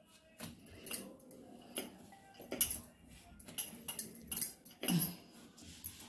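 Wooden rolling pin rolling out dough on a stone countertop, with irregular sharp clicks and knocks as the pin and hand meet the stone. The loudest knock comes about two and a half seconds in.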